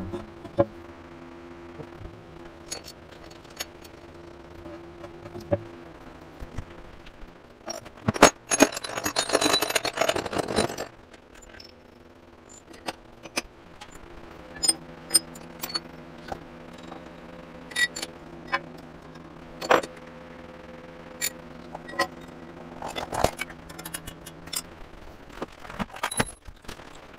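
Steel parts and tools clanking and clinking on a cast-iron machine table as an angle-plate setup is rearranged, with a loud rattling scrape of metal for about three seconds some eight seconds in. A faint steady hum sits underneath, dropping out for a few seconds after the scrape.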